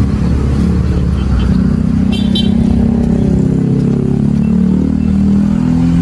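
Car engine running steadily, its pitch drifting slightly up and down.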